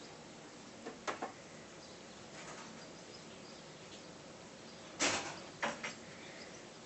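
Short rustling scuffs of Ragdoll kittens' paws scrambling on a shiny bedspread and a fringed blanket: two quick ones about a second in and a louder pair about five seconds in, over a faint steady hiss.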